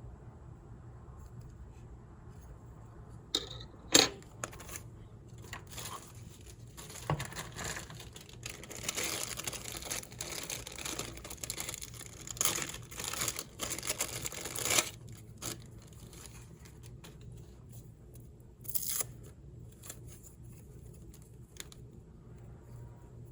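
Packaging being opened and handled: plastic or paper wrapping crinkling and tearing, with a sharp knock about four seconds in and scattered clicks.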